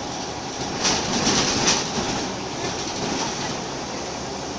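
Inside a Scania L94UB Wright Solar single-decker bus on the move: steady engine and road noise, with a burst of loud rattling and clattering from the body and fittings about a second in.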